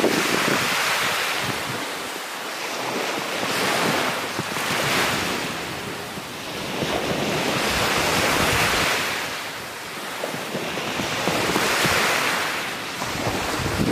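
Small waves breaking and washing up on a sandy beach, the surf swelling and fading about every three to four seconds.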